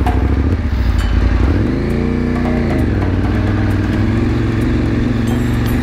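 KTM 790 Adventure Rally's parallel-twin engine running at low revs, rising briefly in pitch and dropping back about two seconds in.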